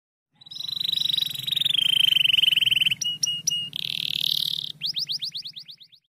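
Domestic canary singing a sequence of song phrases. It opens with a fast, pulsing trill that drops slightly in pitch partway through, then gives three sharp notes about three seconds in and a short buzzy phrase. It ends with a run of about ten quick rising whistles.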